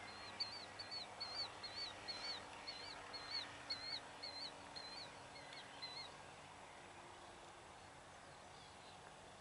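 A bird calling a fast series of short, wavering high notes, about two or three a second, stopping about six seconds in. A faint, steady low engine hum lies beneath.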